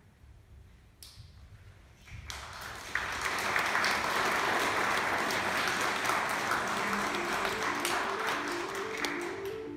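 Audience applauding, starting about two seconds in and fading near the end. A soft mallet-percussion melody begins underneath about seven seconds in.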